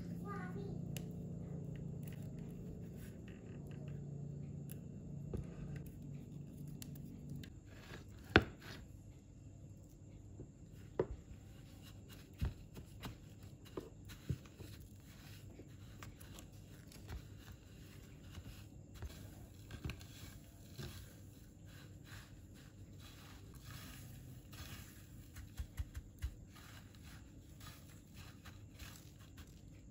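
Batter-coated sausage on a wooden skewer being rolled and pressed in bread crumbs on a plate: soft crackling and scraping of the crumbs, with scattered taps and clicks, the sharpest about eight seconds in. A low hum fades out about seven seconds in.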